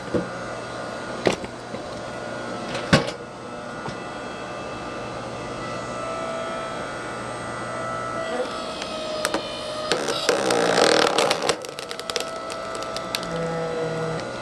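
8-ton hydraulic log splitter running steadily, its motor and pump note shifting partway through as the ram pushes under load. A few sharp cracks come in the first three seconds, and about ten seconds in there is a burst of crackling and snapping as the log splits apart.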